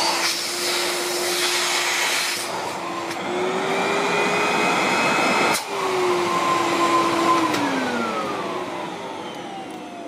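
1980 Miele S224 Electronic canister vacuum cleaner running, its motor tone rising in pitch about three seconds in. There is a click about halfway through. The motor then winds down with a falling whine, and by its sound it runs flawlessly.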